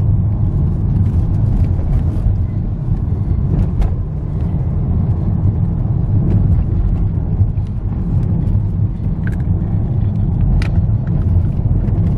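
Steady low road and engine rumble inside a moving car's cabin, with a few faint clicks scattered through it.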